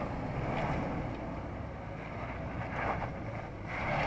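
Toyota 4Runner's 4.0-litre V6 engine running under load as the SUV crawls up a sandstone rock ledge, with wind on the microphone.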